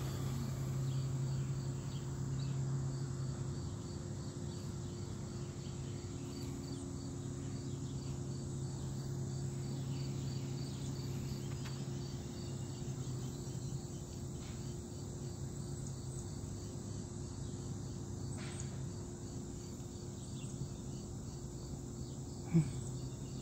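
Insects chirping in a steady, even pulse, a couple of chirps a second, over a steady low hum. A single short knock near the end.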